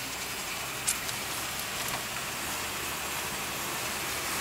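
A car on the move, heard from inside the cabin: steady road and wind noise over the 1962 Ford Fairlane's 200 cubic-inch straight-six engine running, with one sharp click about a second in.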